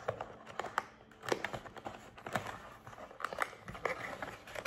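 Small cardboard box being opened by hand: scattered light scrapes, taps and crinkles of the cardboard flaps and packaging.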